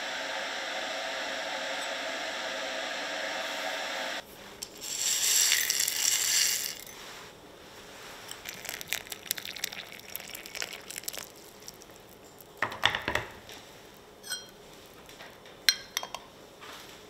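Porcelain teaware clinking as small cups and a gaiwan lid are set down and handled: scattered light clicks and a few short ringing clinks in the second half. Earlier there is a steady hum that stops suddenly about four seconds in, then a loud hiss lasting about two seconds.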